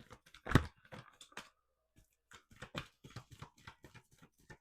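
A deck of oracle cards being handled, a run of quick clicks and rustles of card stock. One much louder thump comes about half a second in.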